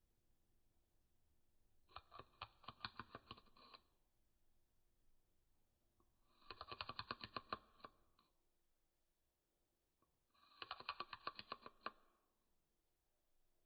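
Scratching in three bursts of about two seconds each, each made of rapid back-and-forth strokes on a hard surface, with quiet gaps between.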